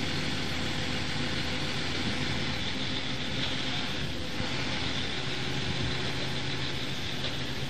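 Steady hum of a 45-tonne electric coil transfer cart's drive motor and running gear, an even hiss with a few constant low tones; one low tone grows stronger about halfway through.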